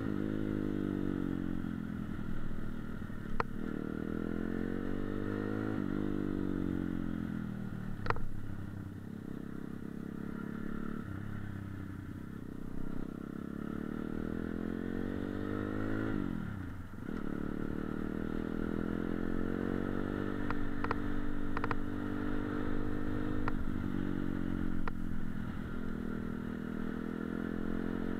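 Dirt bike engine running as it rides along, the revs repeatedly climbing and dropping with throttle and gear changes, with one deep dip about two-thirds of the way through. A few short sharp knocks come over it, the loudest about eight seconds in.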